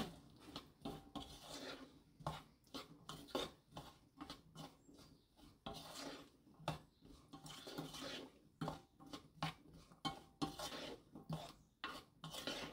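A wooden spoon stirring glazed kidney beans and peas in a frying pan: irregular scrapes and knocks of the spoon against the pan as the beans are turned over.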